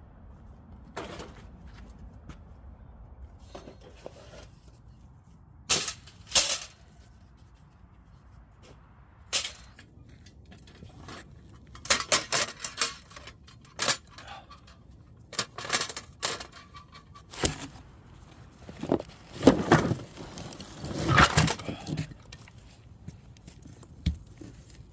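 Irregular knocks and clicks, a dozen or so sharp strikes spread out with pauses between them, and a longer run of clatter and rustling near the end.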